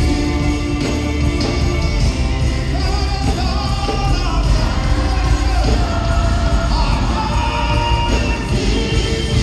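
Live gospel worship music: a band with heavy bass and drums under sung vocals, recorded in a large hall.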